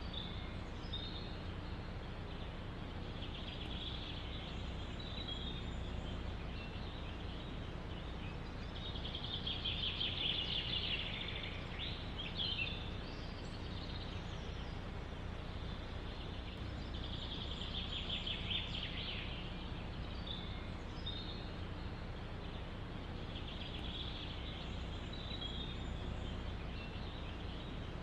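Small songbirds singing short trilled phrases every few seconds, over a steady low rush of wind in the forest.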